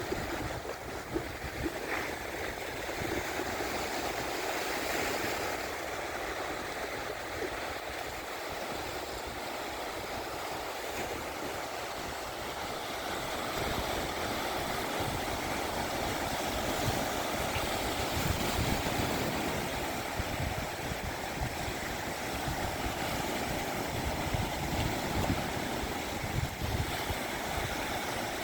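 Black Sea surf washing on the shore, a continuous hiss of breaking waves. Uneven low rumbling swells in from about the middle on.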